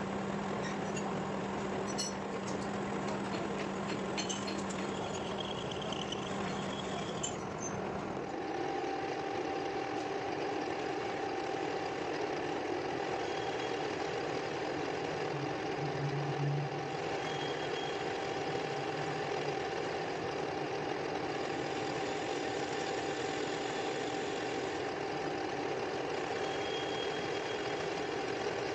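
Metal lathe running steadily with a gear blank spinning in its chuck, a continuous mechanical hum. Its tone shifts about eight seconds in.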